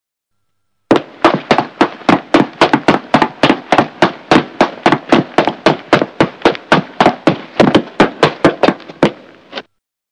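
A rapid, fairly even series of sharp knocks or bangs, about four a second, starting about a second in and stopping abruptly near the end.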